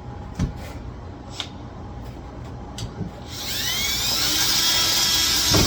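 Cordless drill driving a long lock mounting screw home. A few light handling clicks come first. About three seconds in, the drill motor spins up with a rising whine, runs for about two seconds and stops as the screw seats tight, with a knock at the end.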